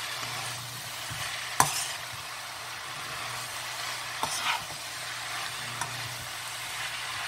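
Spinach, onion and pepper sizzling in a non-stick wok while being stirred with a utensil. There is a sharp knock of the utensil on the pan about a second and a half in, and a softer scrape past the middle.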